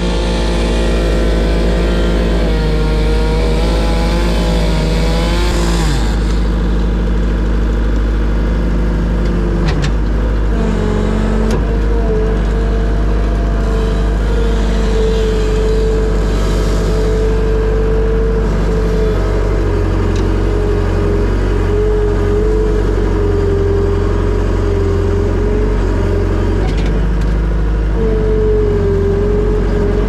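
Skid steer engine running steadily at working throttle, heard from inside the operator's cab as the machine works its grapple bucket. In the first six seconds a higher, wavering tone and hiss ride over the engine.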